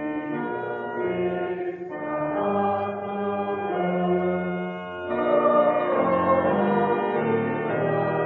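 Pipe organ playing slow, sustained chords that change about once a second, growing louder about five seconds in. This is the 1956 organ of Bethlehem Lutheran Church, Adelaide.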